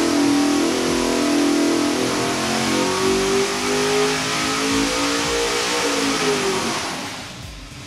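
451 cubic inch Dart-block Ford Windsor V8 with ported T-Rex cylinder heads and a single carburettor making a power pull on an engine dyno with one more degree of ignition timing: the engine note climbs steadily in pitch as the revs rise under load, then falls away near the end as the run is shut down.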